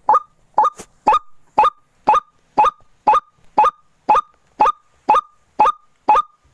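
White-breasted waterhen lure call: a short harsh 'kruak' repeated steadily, about two calls a second.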